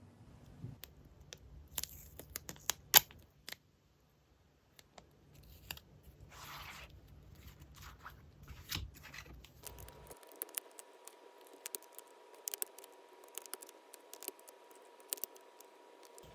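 Paper craft materials being handled at close range: scattered sharp clicks and taps, short paper rustles and what may be snips of scissors. The sound drops out to dead silence for about a second and a half early on.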